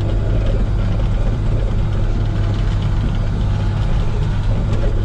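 Komatsu PC16 mini excavator's diesel engine running steadily, heard from inside the cab, with a strong low hum.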